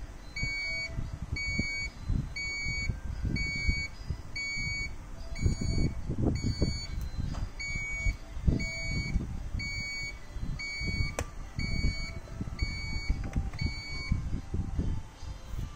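Amway eSpring water purifier control board beeping: a short high beep about once a second, repeating steadily and stopping near the end, over irregular low rumbling. The alarm is one the repairer puts down to an expired filter cartridge.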